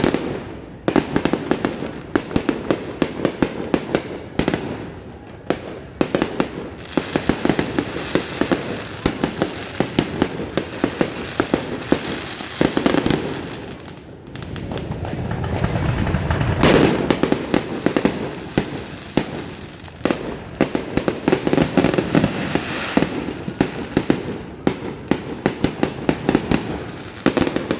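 New Year fireworks going off continuously: a dense run of cracks, pops and bangs, swelling into a heavier, deeper burst about 16 seconds in.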